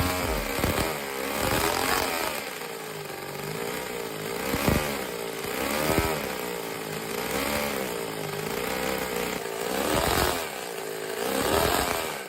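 Small engine running and revving up and down in repeated swells, its pitch rising and falling about every one and a half to two seconds, with a few sharp clicks.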